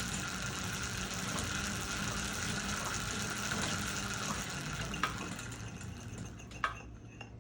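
Pedal-driven Barnes velocipede metal lathe running smoothly with a steady whirring hiss. It dies down near the end, with a couple of sharp clicks.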